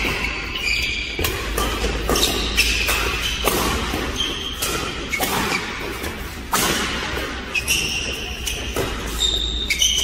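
A badminton doubles rally: a quick run of sharp racket-on-shuttlecock hits at irregular half-second to one-second intervals, with short squeaks of court shoes on the floor between them, echoing in a large hall.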